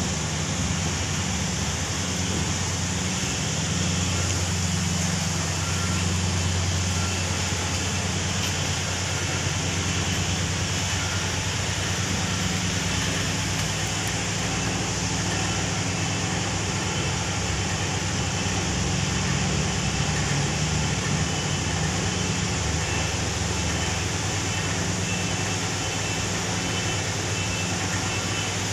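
Steady machinery noise: a constant low drone with a hiss above it, unchanging throughout.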